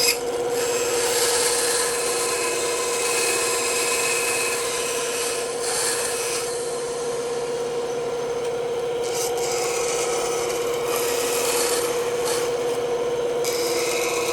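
Bandsaw running with a steady hum while its blade cuts wood, the rasping cut coming and going as the piece is fed and turned.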